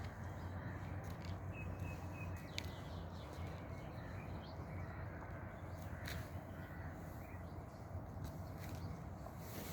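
Outdoor ambience: a steady low hum, with a few short bird calls and clicks over it.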